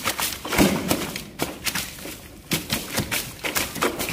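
A large grey mullet (thirutha) tangled in a nylon cast net, flapping and thrashing on the wet floor of a canoe: an irregular run of sharp slaps, thuds and splashes, the strongest about half a second in.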